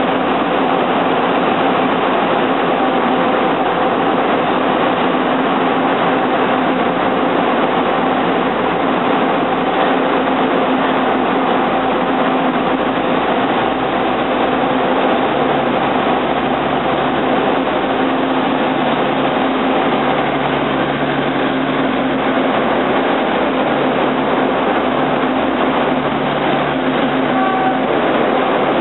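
TRA DR1000 diesel railcars departing at low speed: a steady underfloor diesel engine drone with a constant low hum, and running noise as the cars roll past close by.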